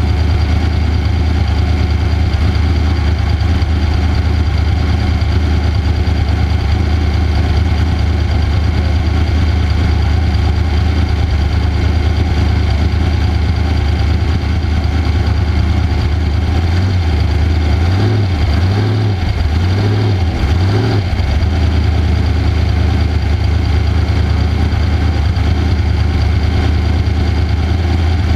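Off-road race vehicle's engine running at nearly steady revs, with a few quick rises and dips in pitch around two-thirds of the way in.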